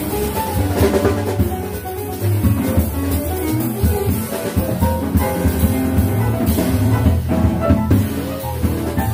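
A small jazz band playing live. A double bass plays a line of low notes under drum kit cymbals and drums, with piano in the group.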